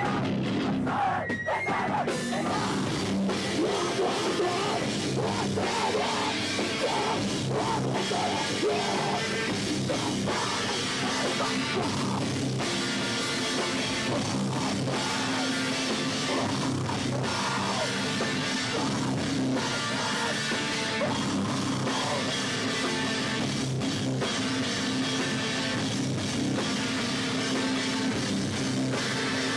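Heavy rock band playing live and loud, with distorted guitars, bass guitar and drum kit. The full band sound fills in about two seconds in.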